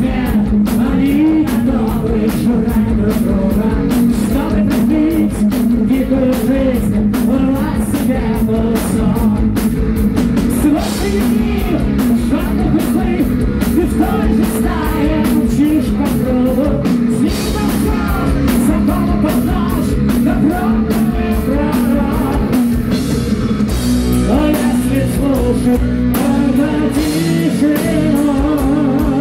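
Heavy metal band playing live: a male lead vocal sung over distorted electric guitars, bass and a drum kit, loud and continuous.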